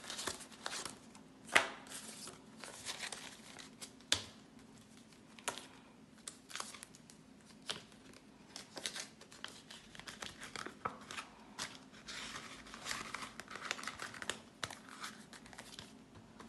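Hands counting through a stack of Jamaican banknotes and stuffing them into a cash envelope: papery rustling and crinkling with many quick flicks and snaps, the sharpest about one and a half and four seconds in.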